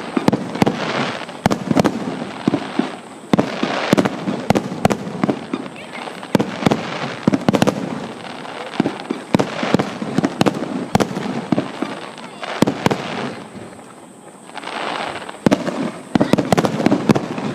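Fireworks display: aerial shells bursting in repeated sharp bangs and crackles, one after another, with people's voices underneath. There is a short lull about three-quarters of the way through.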